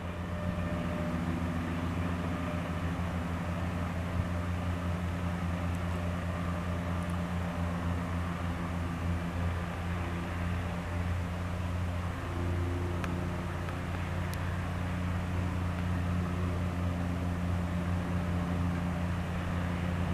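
Guimbal Cabri G2 helicopter in a low hover, its four-cylinder Lycoming piston engine and rotor making a steady drone with a fast, even beat from the rotor blades. The tone shifts slightly about twelve seconds in.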